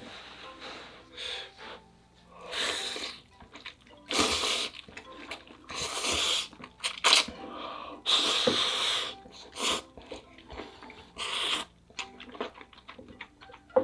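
A person slurping spicy ramyeon noodles close to the microphone: about six wet slurps, each lasting half a second to a second, with short chewing clicks between them.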